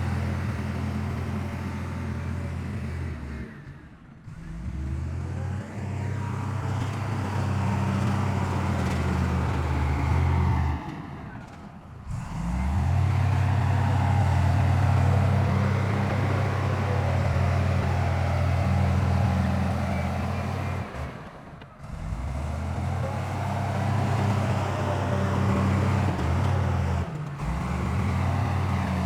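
Heavy diesel engine of earthmoving machinery running steadily at a low, even pitch. It cuts out briefly four times and starts again each time.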